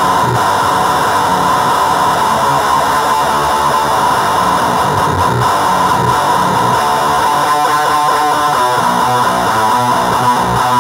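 Electric guitar played through distortion pedals into a speaker cabinet, with a thick, noisy distorted tone and notes picked more distinctly in the second half.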